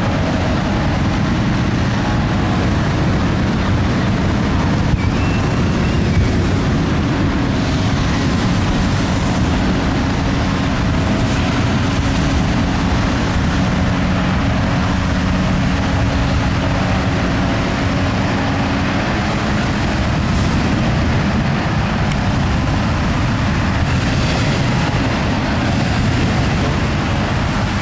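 Engine-driven balloon inflator fans running steadily, cold-inflating hot-air balloon envelopes. A low steady hum in the mix drops out about two-thirds of the way through.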